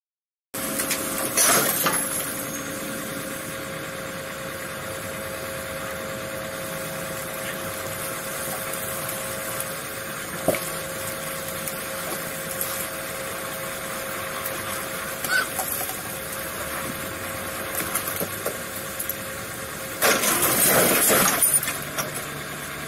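Heavy recovery truck running steadily while it rights an overturned lorry, with a steady hum through the first half. The sound turns louder for a couple of seconds near the end.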